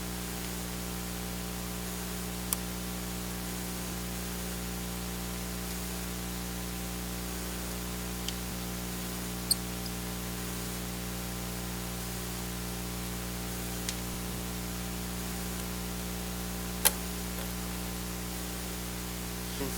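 Steady electrical hum and hiss, with five scattered sharp clicks of a small Phillips screwdriver and screws against a Panasonic Toughbook CF-30's case as the back-plate screws are removed; the loudest click comes near the end.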